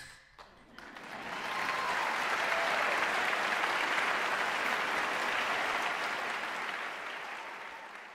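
Audience applauding at the end of a performance: the clapping swells about a second in, holds, then fades away near the end.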